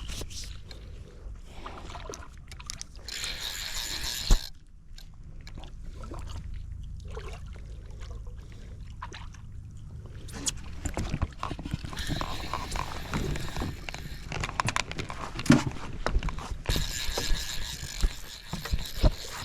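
Clicks, knocks and scuffs of fishing gear and handling against a small boat's hull, with a sharp knock about four seconds in and another near fifteen seconds, and short spells of hiss near the start and the end.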